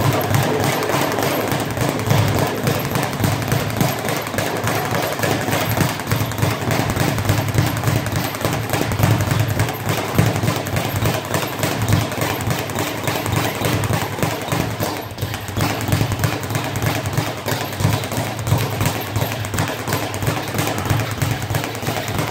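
Leather speed bag being punched in a fast, continuous rattle, rebounding against a wooden speed bag platform.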